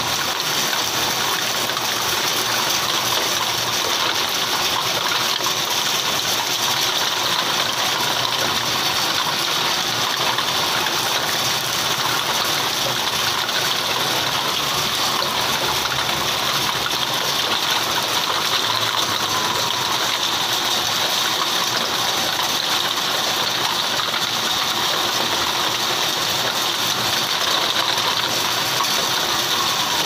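Heavy rain pouring steadily in a storm, an even continuous hiss.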